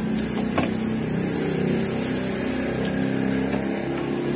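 An engine running steadily at a constant pitch, with a light click about half a second in.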